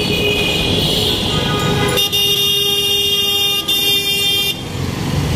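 Motorcycle in dense city traffic, with engine and road noise. From about two seconds in, a vehicle horn sounds for about two and a half seconds with one brief break, then the traffic noise returns.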